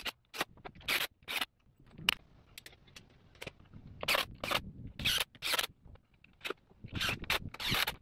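Short, sharp scraping strokes against the wood, in quick pairs and threes about half a second apart, with pauses between the groups.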